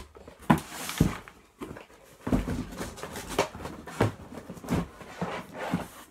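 Things being handled in and around a cardboard box: a run of irregular knocks and thumps, with paper and cardboard rustling about a second in.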